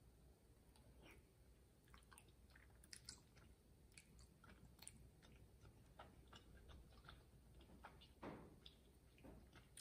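Faint mouth sounds of chewing chewy rice cakes and glass noodles: soft, wet little clicks and smacks scattered throughout, with a slightly louder one about eight seconds in.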